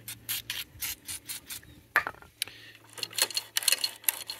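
Metal parts of a turntable mechanism being worked back and forth by hand after a soaking in WD-40: irregular clicks, rattles and scrapes, with one sharper knock about two seconds in. The stiff mechanism is being freed up.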